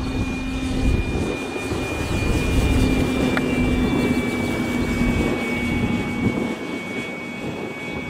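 Motor and propeller of a radio-controlled model Piper Cub flying, a steady drone with a thin high whine that swells as the plane passes overhead about halfway through, then eases. Wind buffets the microphone throughout.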